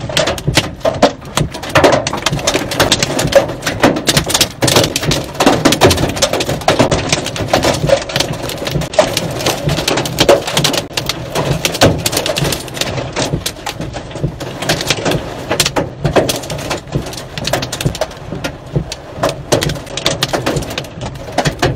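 Hail pelting a vehicle's roof and windshield, heard from inside the cab: a dense, irregular clatter of hard ticks and knocks over a steady low rumble.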